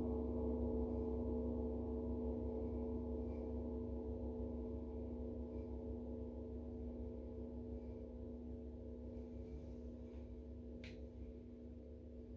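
Paiste gong ringing out after a strike: a low, steady hum of several overlapping tones that fades slowly. A faint click comes about eleven seconds in.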